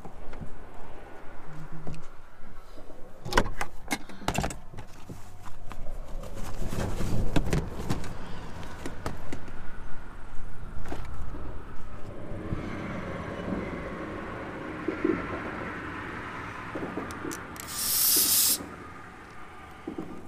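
A pickup truck door is opened and gear is handled, making a string of clicks and knocks over a steady rumble of road traffic. Near the end comes a short, sharp hiss of air from a tyre valve as a deflator hose is fitted to let air out of the tyre.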